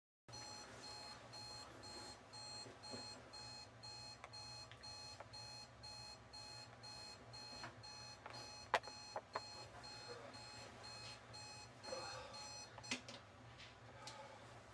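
Electronic alarm clock beeping: short, high beeps repeating steadily about twice a second, stopping near the end. A few sharp clicks or knocks sound along the way, the loudest about two-thirds through.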